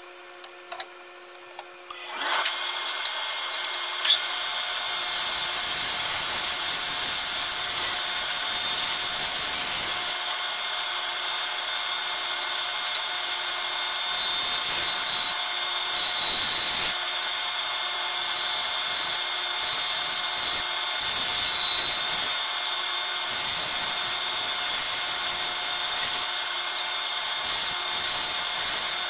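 A bandsaw starts up about two seconds in and runs steadily, its blade cutting wood in a series of passes. Each pass adds a hiss over the motor sound as the wood is fed into the blade.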